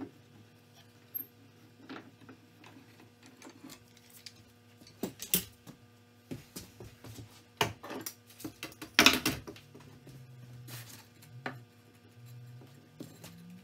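Bar clamps being worked and taken off a glued-up maple stretcher, and wooden glue blocks handled on a workbench: scattered clicks and knocks, with a cluster about five seconds in and the loudest knocks about nine seconds in.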